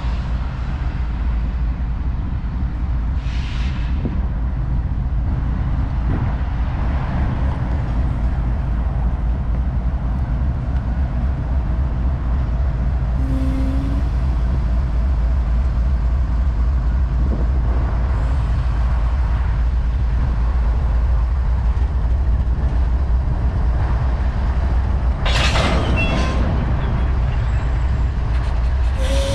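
Diesel-electric freight locomotives running, a steady low engine drone growing slightly louder as they roll slowly up to couple to the cars, with a short hiss of air near the end.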